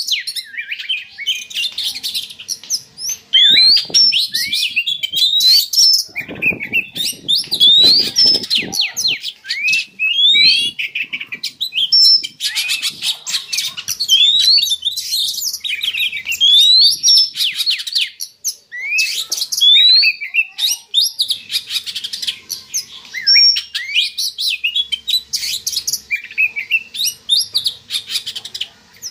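Oriental magpie-robin (kacer) singing in breeding condition: phrase after phrase of quick rising whistles mixed with harsher chattering notes, with short pauses between phrases.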